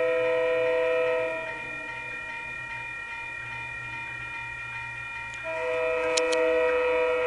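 Approaching train sounding its horn in two long blasts, each a chord of several notes lasting about a second and a half; the second starts about five and a half seconds in. A steady rumble and hum from the train runs underneath.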